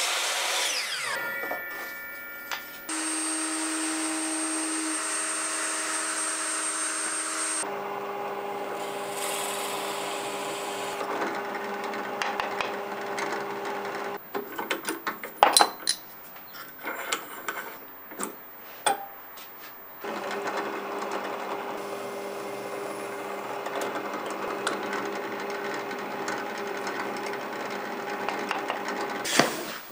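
A Metabo miter saw finishes a cut in hardwood and spins down in the first two seconds. A bench drill press motor then runs steadily while bits bore into a wooden strip. In the middle there is a spell of scattered knocks and clicks from handling the wood.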